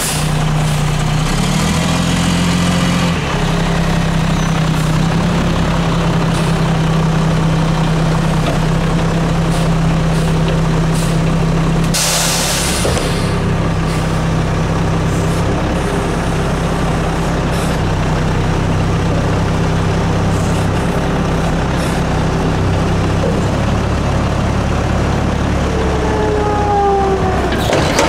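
Front-loading garbage truck's engine running steadily under load with a steady low hum while its hydraulic front forks lift a plastic recycling container over the cab. A burst of hissing air comes about twelve seconds in, and a few short falling squeaks come near the end.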